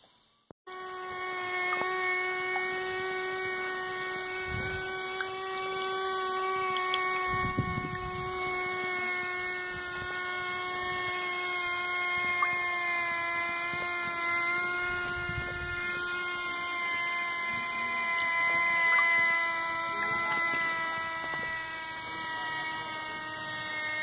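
A small DC motor starts about half a second in and whines steadily as it spins a homemade tin-can blade propeller that throws water spray; its pitch sinks slightly over time. A few low rumbles come and go underneath.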